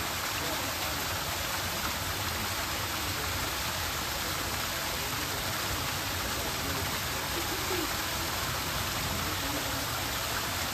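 Small artificial waterfall splashing steadily into a rock pool.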